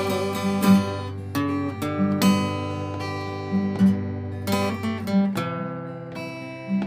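Acoustic guitar playing an instrumental passage between sung verses: strummed chords with picked notes ringing on, no singing.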